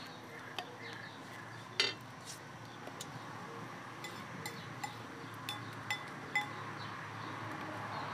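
A spoon and ladle clinking against a metal pot and ceramic bowls as broth is served, with one sharper clink about two seconds in and a run of light, briefly ringing clinks later on.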